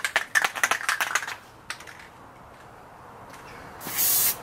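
Aerosol can of Plasti Dip being shaken, its mixing ball rattling in quick clicks for about a second. Near the end comes a short, loud hiss of spray as the coating goes onto the grille.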